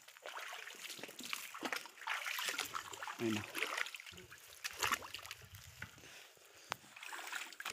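Shallow water splashing and sloshing in irregular bursts as someone wades through a mangrove swamp.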